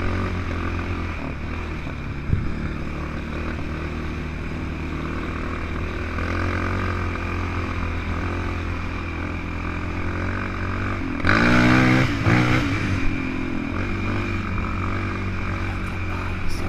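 Off-road vehicle engine running steadily under way. About eleven seconds in it revs up louder for a couple of seconds, then settles back.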